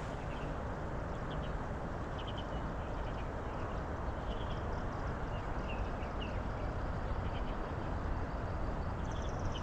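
Steady low outdoor noise with scattered short, high bird calls, and a fast high trill starting near the end.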